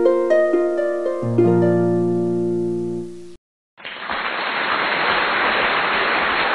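Intro jingle of plucked, harp-like notes in a rising run, with a deep bass note joining about a second in; it stops about three seconds in. After a short gap comes a steady hiss of noise.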